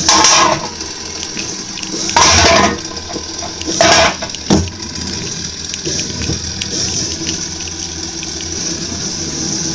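Hexbug Tombstone toy battle robot's small electric motors whining steadily. Three louder buzzing stretches of about half a second come in the first four seconds, and a single sharp knock follows at about four and a half seconds.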